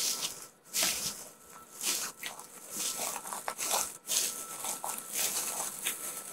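Footsteps crunching on dry ground and brush, about one step a second, with rustling between steps.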